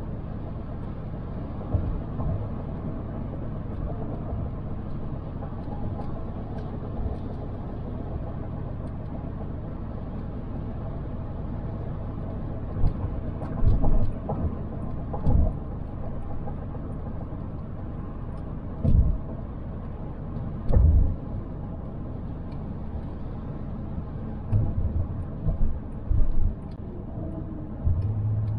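Car driving, heard as a steady low road rumble, with several short, heavier low thumps in the second half.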